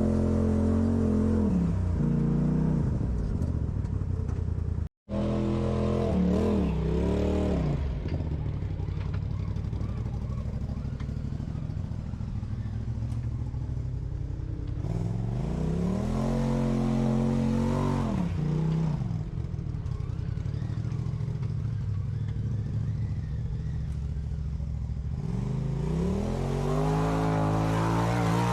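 Off-road vehicle's engine running under load and revving up and down in repeated surges, its pitch rising and falling about three times. The sound cuts out briefly about five seconds in.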